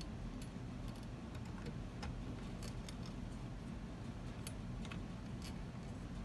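Small screws and metal parts being handled and fitted by hand into an amplifier's output-stage heat sinks and bracket: a scatter of light metallic clicks and ticks over a steady low hum.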